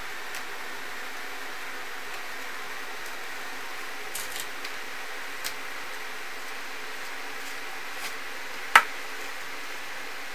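Small sharp clicks and taps of model railroad flex track and track nails being handled and pressed into cork roadbed, with one louder click near the end, over a steady hiss.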